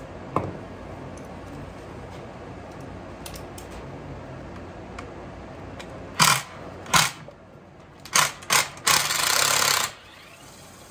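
Small metal engine parts and hand tools being handled during a fuel-line change on a 49cc engine. There are short clanks and rattles about six and seven seconds in, two more just after eight seconds, and then a harsher rattle lasting about a second near the end.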